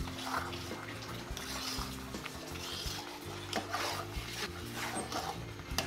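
A steel spoon scraping and knocking against a metal pot as a thick, stiffening semolina dough is stirred, with background music playing.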